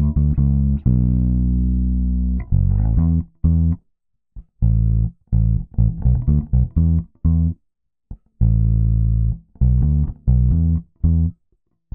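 Solo electric bass guitar playing a riff of short, low notes in phrases with brief pauses, recorded through a Weight Tank WT-COMP compressor.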